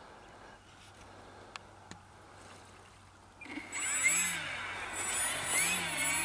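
Twin brushless electric motors with three-blade propellers on an RC flying boat start up about three and a half seconds in, a steady high whine whose pitch rises and falls as the throttle is worked while the model taxis on water. Before that it is quiet apart from two faint clicks.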